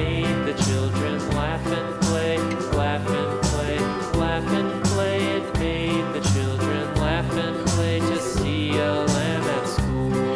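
Background music: an upbeat country-style tune with a steady beat.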